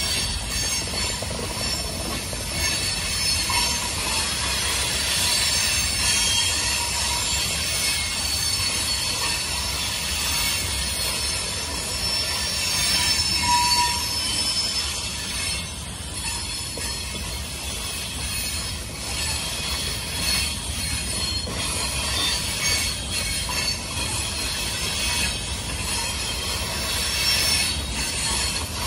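Train rolling past with its steel wheels squealing against the rails: several thin high-pitched tones held over a continuous rumble, with scattered clicks.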